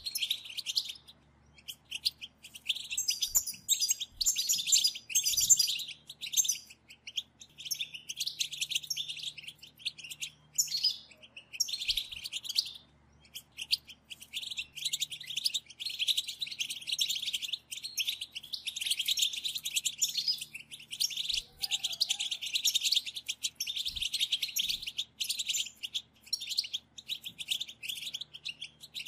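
Several European goldfinches twittering in rapid, high, overlapping chirps, the goldfinch chatter that keepers call batbata. The chirping comes in long bursts broken by short pauses.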